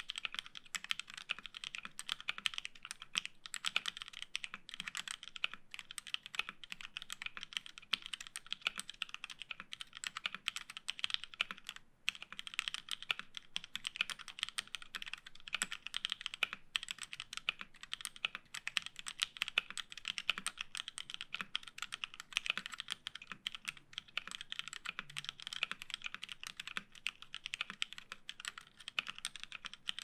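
Continuous fast typing on an OTD 356 mini mechanical keyboard with an aluminium plate, vintage Cherry MX Black linear switches on lubed 55 g springs and DCS-profile keycaps: a dense, unbroken stream of key clacks with one short pause about twelve seconds in.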